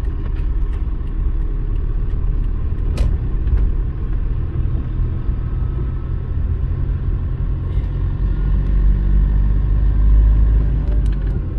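Car driving on a wet road, heard from inside the cabin: a steady low rumble of engine and tyres, with a single sharp click about three seconds in.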